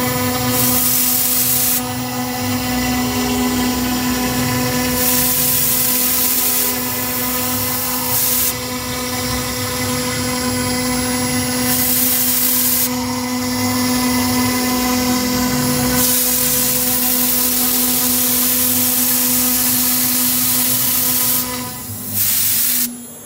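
CNC router spindle running at a steady pitched whine while its engraving bit cuts into MDF. The cutting hiss comes and goes in stretches of a second or more as the bit moves along the lettering, and cuts off just before the end.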